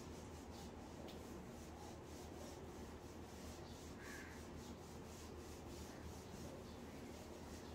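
Whiteboard duster erasing the board in quick back-and-forth strokes, a faint, rhythmic rubbing hiss.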